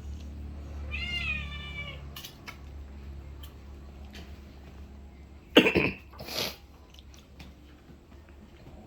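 A pet's short high-pitched whining mew about a second in, followed by two brief loud noises past the middle, over a steady low hum.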